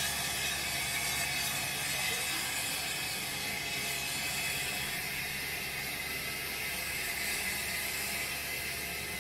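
0 gauge model passenger train running slowly along the track: a steady mechanical rattle of wheels on rail and loco gearing.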